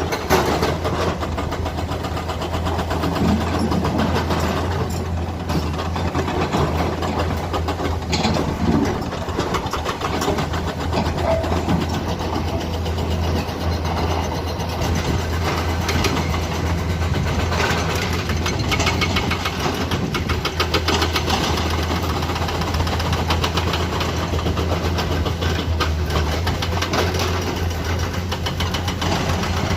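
Komatsu hydraulic excavator's diesel engine running steadily, a low hum with frequent short knocks and clatter over it.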